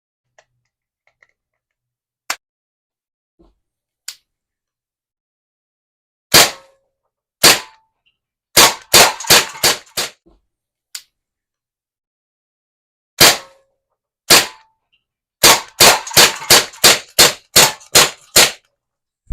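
Daisy Powerline 415 CO2 semi-automatic BB pistol firing sharp pops. Two single shots come first, then a quick string of about six. After two more singles, a longer rapid string of about a dozen follows, at roughly five shots a second.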